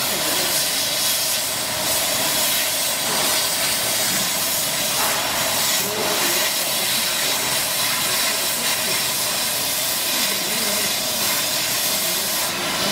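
Steady, even hiss of a CO2 laser cutting machine at work on cardboard.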